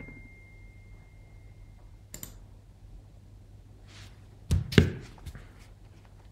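Two close, sharp thunks about four and a half seconds in, the loudest sounds here, with a few lighter clicks around them over a low steady hum. A faint high tone fades out during the first two seconds.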